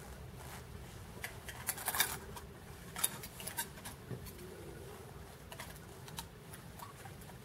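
Clothes hangers clicking and knocking on a rail as garments are flicked through, a quick irregular run of light clicks.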